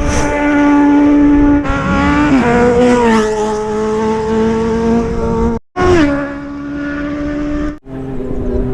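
Motorcycle engines revved hard and held at high rpm, the pitch holding steady and then stepping up and down several times. The sound breaks off abruptly twice for a split second.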